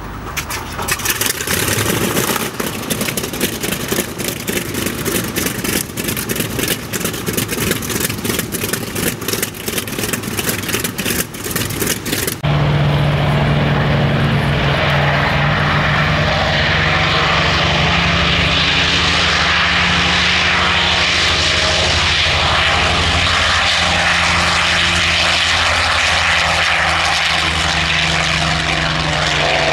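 Douglas A-1 Skyraider's Wright R-3350 18-cylinder radial engine running on the ground with a rough, crackling beat. About twelve seconds in the sound cuts abruptly to the engine at full take-off power: a steady, loud drone with propeller noise.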